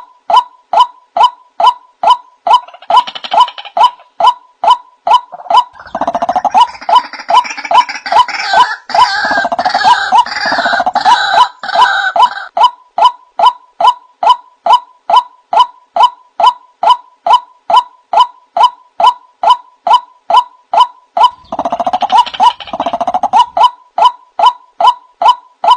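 White-breasted waterhen lure call: a short harsh note repeated very evenly, about two and a half a second, as from a loop. A denser, louder run of croaking calls lies over it from about 6 to 12 seconds in and again briefly near 22 seconds.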